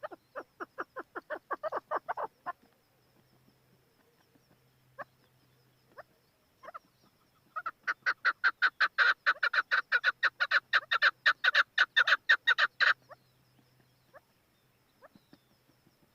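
Chukar partridge calling: a quick run of short, repeated chuck notes at about seven a second, then a few scattered single notes, then a longer, louder run of the same rapid notes lasting about five seconds before it stops abruptly.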